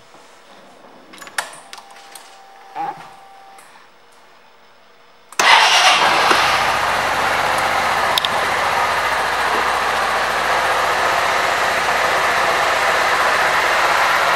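A few faint clicks, then about five seconds in the 2014 Suzuki Burgman 400 scooter's single-cylinder engine starts at once and settles into a steady idle.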